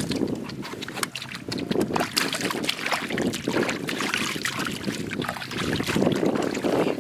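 Shallow water splashing and sloshing with many irregular small splashes.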